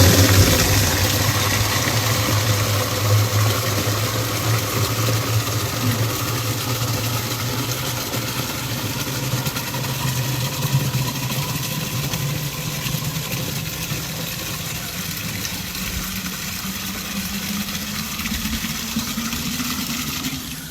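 Pressure washer running and spraying: a steady motor hum under the hiss of the water jet, cutting off abruptly at the end.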